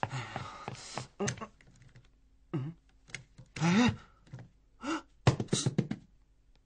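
A door handle clicking and rattling, with knocks and footsteps, broken by a few short pained groans.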